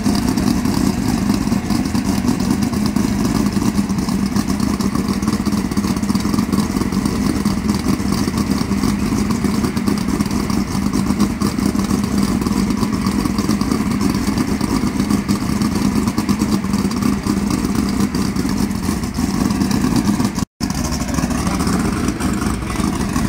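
Drag race car's engine idling steadily at the starting line, a loud, even rumble with no revving. The sound drops out completely for an instant near the end.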